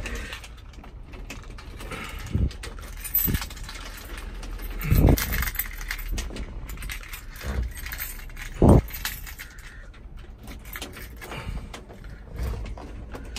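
Key ring jangling and clicking as a key is worked in the ignition switch of a 1952 Chevy pickup, with a few short dull thumps of handling; the loudest thump comes about two-thirds of the way through.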